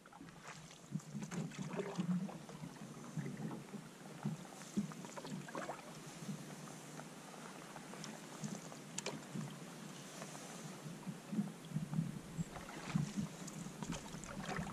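Canoe paddle strokes in calm water: irregular splashes and drips, with a few short, sharp knocks, likely the paddle touching the canoe.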